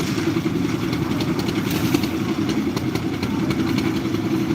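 Engine-driven construction machinery running steadily, a fast pulsing drone with a light rattle over it.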